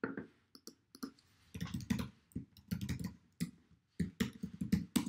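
Typing on a computer keyboard: irregular runs of quick keystrokes with short pauses between them, as a username and password are entered.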